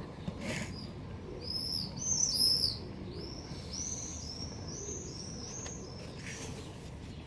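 A bird singing a run of high, arching chirps, about two a second for some four seconds. Two brief rustles come about half a second in and near the end.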